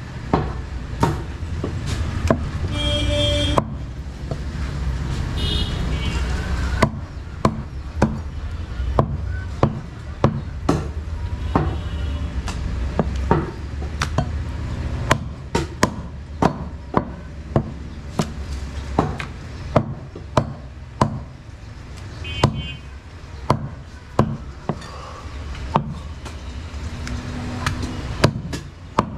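Heavy butcher's cleaver chopping through goat meat and bone on a wooden chopping block. The sharp strikes come irregularly, about one or two a second, over a steady low rumble.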